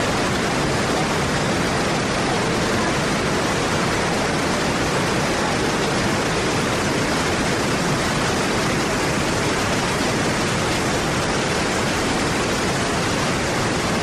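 Montmorency Falls pouring down: a steady, loud rush of falling water with no change throughout.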